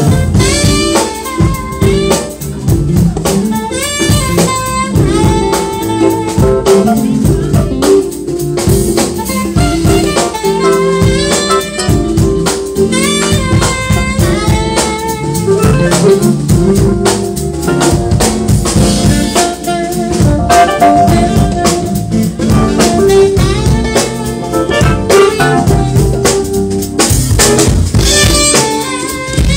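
Live jazz band playing: a saxophone carries a melody over drum kit, electric bass and electric guitar, with steady drum hits throughout.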